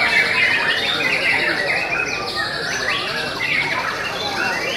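White-rumped shamas singing together, a dense, unbroken tangle of varied whistles and chirps, several songs overlapping.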